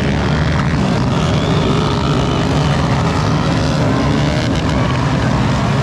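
Motocross dirt bike engines revving and running around the track, blended with music.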